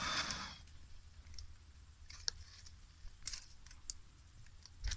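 A short breathy rush of air blown onto the embers of a small twig fire, then a few sharp light clicks spaced about a second apart.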